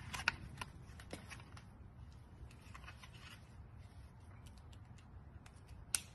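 Faint handling of a plastic bike helmet being put on, with scattered light clicks and rustles and one sharper click near the end.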